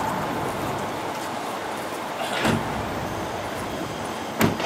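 Steady outdoor rumble of engine noise, with a dull bump about halfway through and a sharp click near the end.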